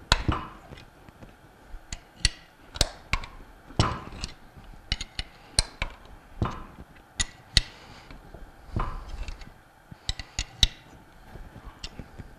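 Irregular sharp metallic clicks and clinks, some with a short ring, from a wrench turning the forcing screw of a jaw puller as it pulls a bearing off a Bell & Gossett Series 1510 pump shaft.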